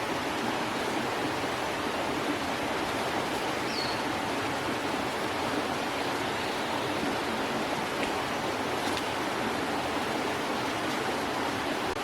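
Steady rushing of flowing water, even and unbroken, with one brief high chirp about four seconds in.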